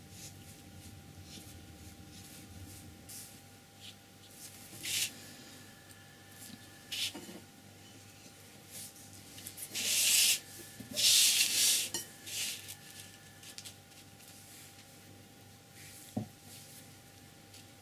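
A sheet of painting paper rubbing and scraping as it is slid and turned on a tabletop, in short bursts that are loudest about ten to twelve seconds in. A single knock comes near the end.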